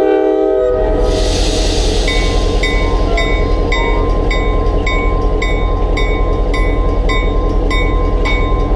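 Diesel locomotive of a passenger excursion train: its horn chord ends about a second in, then the engine runs under load as the train pulls away. Over the engine a bright short clang repeats about twice a second.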